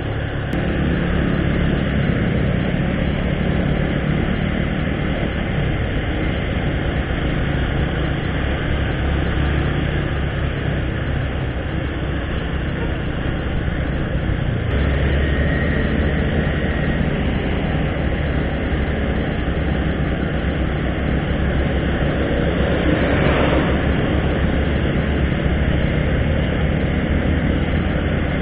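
Motorcycle engine running steadily under way, with road and wind noise over the microphone. The engine note shifts about six seconds in and again about fifteen seconds in, a short high tone sounds just after the second shift, and a brief swell of noise comes about three-quarters of the way through.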